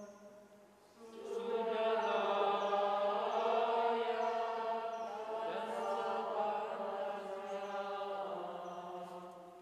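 Several voices singing a slow chant together. It swells about a second in and fades away near the end.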